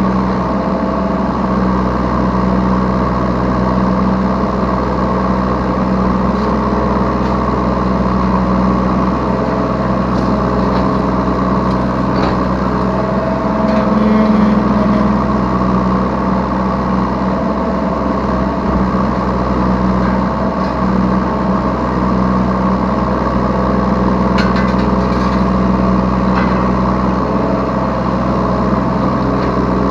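Yanmar B3 Sigma 3-tonne mini excavator's diesel engine running steadily, heard from the operator's seat. The engine note rises briefly about halfway through, with a few faint clicks.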